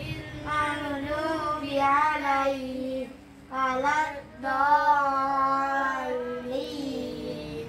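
Children chanting a prayer together in a sing-song recitation, with a brief pause about three seconds in.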